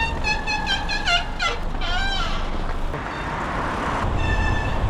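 Bicycle disc brakes squealing: a high-pitched squeal that wavers and breaks into quick rising-and-falling chirps over the first two seconds, stops, then comes back steady near the end. A sign of brake pads that a rider says need replacing.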